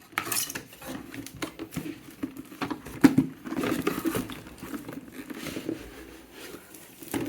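Packaging and a plastic cable-management box being handled while unboxing: scattered light scrapes, rustles and taps, busiest about three seconds in.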